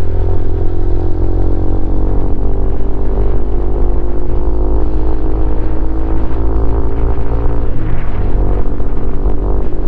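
Honda CRF150L's single-cylinder four-stroke engine running through a Norifumi Noctus T5 aftermarket exhaust while riding, at a fairly steady pitch that eases slightly, then changes about eight seconds in.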